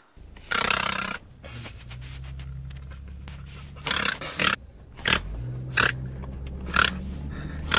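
A person's short, breathy vocal noises, heard several times in a car cabin, over a steady low hum of the car running.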